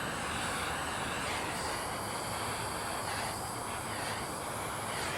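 Small handheld soldering torch burning with a steady hissing flame while it heats heat-shrink tubing.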